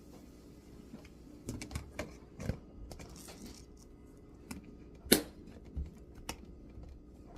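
Irregular light clicks and taps of small objects being handled, the sharpest about five seconds in.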